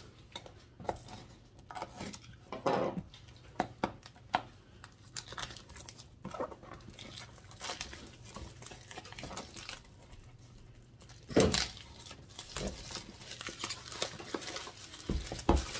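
Clear plastic shrink wrap crinkling and tearing as it is pulled off a cardboard box, in scattered crackles. Two louder knocks stand out, one about three quarters of the way through and one near the end.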